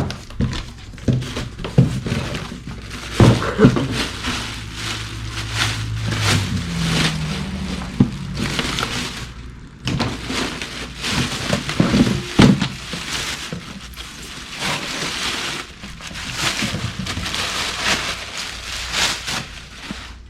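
Crinkling and rustling, with many scattered knocks and clunks, from handling parts and packaging.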